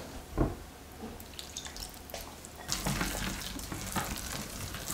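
A wooden spoon stirring a damp, crumbly ground-almond and almond-cream mixture in a glass bowl, starting a little over halfway in, after one soft knock near the start.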